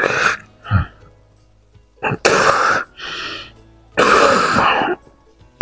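A man coughing and hacking harshly in a string of about six bursts with pauses between, the throat burn from a shot of neat whisky.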